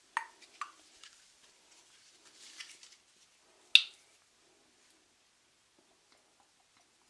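A small glass skincare bottle handled close to the microphone: a few light clicks and taps, a soft brushing sound, and one sharp click about four seconds in.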